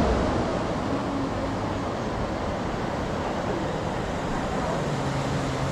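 Steady, even rushing background noise of an outdoor ambience, without any distinct events.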